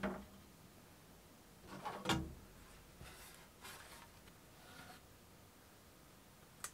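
Faint handling knocks from lifting a Snapmaker J1's enclosure door panel off its hinge: a knock at the start, a louder double knock about two seconds in, then soft rubbing, and a sharp click near the end.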